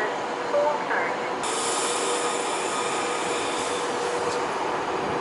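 Virgin class 390 Pendolino electric train at a platform, with a steady electrical hum. About a second and a half in, a sudden hiss starts and runs for about three seconds before easing.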